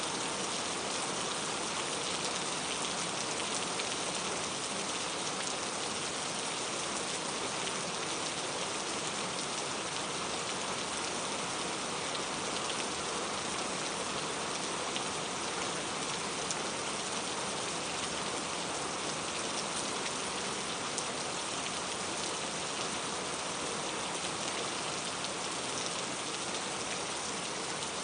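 Steady rain falling, an even hiss of many drops hitting a surface, with no change in strength.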